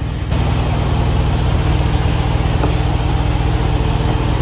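Diesel engine idling steadily and loudly, jumping in level about a third of a second in, then holding even.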